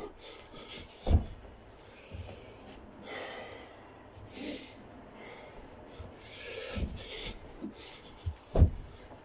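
A man breathing hard while doing burpees, with a few dull thuds as he drops to the floor and lands on the carpet. The loudest thud comes near the end.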